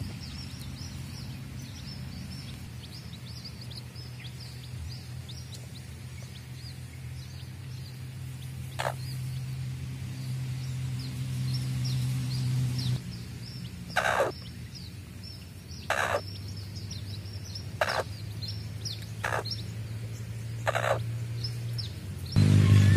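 Domestic chicks peeping continuously in quick high chirps, with the mother hen giving about five short clucks, roughly two seconds apart, in the second half. A low steady hum runs underneath, and loud music comes in right at the end.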